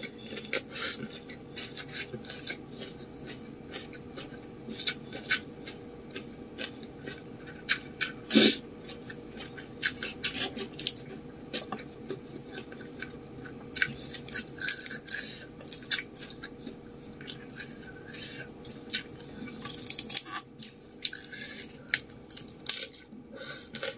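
Close-up mouth sounds of a person eating fried rice vermicelli noodles with raw lettuce: chewing and slurping, with many short, irregular wet smacks and clicks. One louder sound comes about eight seconds in.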